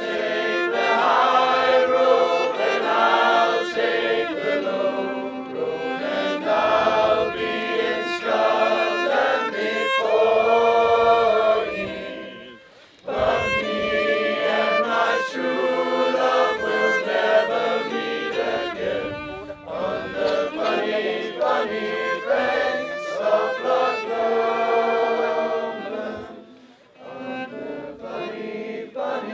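Mixed choir of young voices singing with a cello accompanying, in long sustained phrases. The sound breaks off briefly about thirteen seconds in and dips again shortly before the end.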